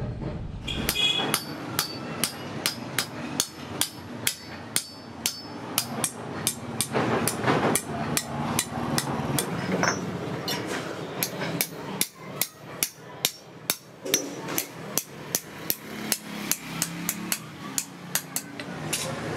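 Hand hammer striking steel on an anvil in a steady rhythm, about two to three blows a second, with sharp ringing strikes.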